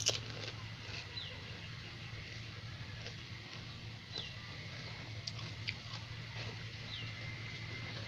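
Quiet eating sounds of pani puri: a crisp crunch at the start, then a few soft mouth clicks over a steady low hum. A short, high, falling chirp comes back about every three seconds.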